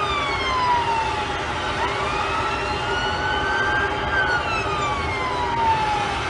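Emergency vehicle siren wailing in a slow rise and fall: the pitch sinks, climbs again about two seconds in, then sinks again. Under it is a steady hum of city noise.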